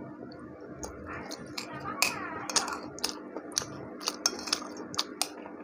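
Metal spoon clinking and scraping against a plate of rice while eating, about ten sharp clinks at uneven intervals. A voice can be heard faintly in the background during the first half.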